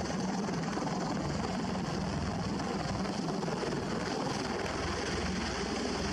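CV-22 Osprey tiltrotor lifting into a hover, its two large proprotors and engines running with a steady, heavy rotor noise.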